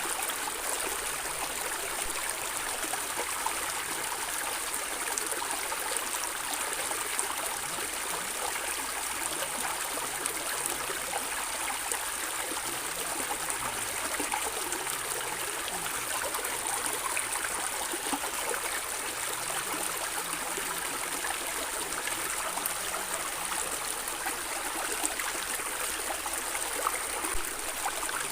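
A small stream flowing steadily over stones, gurgling and splashing.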